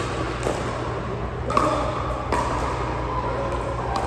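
Sharp clicks of hard objects striking, three times, the later two each followed by a short ringing tone, over a steady low hum.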